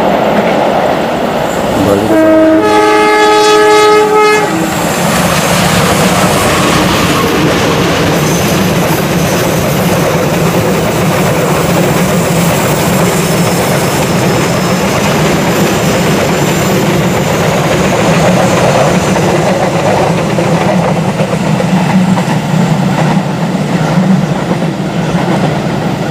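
Diesel locomotive's horn sounds one chord for about two seconds, a couple of seconds in, as a greeting from the driver; around it the long passenger train runs steadily past, engine and wheels on the rails.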